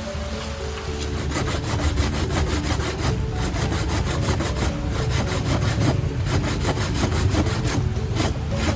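Rhythmic scraping strokes, several a second, starting about a second in, over soft background music.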